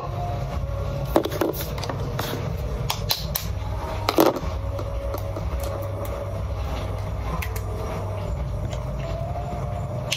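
A few sharp taps as a knife cracks an egg shell, over a steady low hum.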